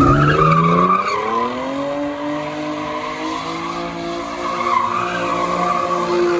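Chevrolet Camaro doing donuts: the engine revs up over the first second and a half, then holds at high revs while the rear tyres squeal and skid on the pavement.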